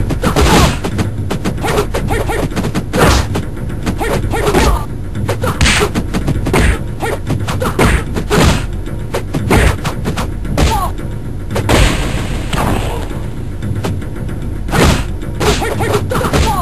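Cartoon fight sound effects: punch and kick impacts, a dozen or more sharp hits at irregular spacing, some in quick pairs, over steady background music.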